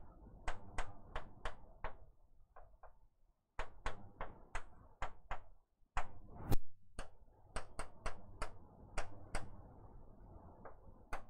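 A series of sharp, irregular taps and clicks, coming in runs of about three a second broken by short pauses.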